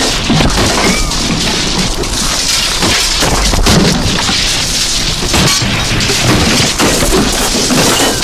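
Harsh experimental noise music built from amplified objects, contact microphones, a no-input mixing board and tape feedback: a loud, dense wall of crackling and crashing hits over a steady low rumble, with a few faint sliding tones about a second in.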